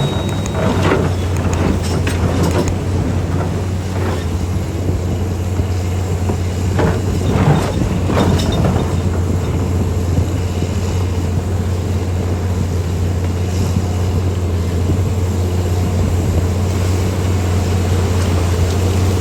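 Heavy mining diesel engines running with a deep, steady drone, with a few brief rattles and clanks about a second in and again around seven to eight seconds in.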